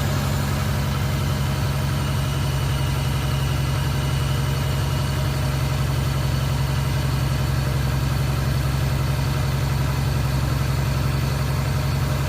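Toyota MA70 Supra engine idling steadily through an HKS Silent Hi-Power exhaust, warmed up with the cooling system purging air bubbles while it is bled after a radiator replacement.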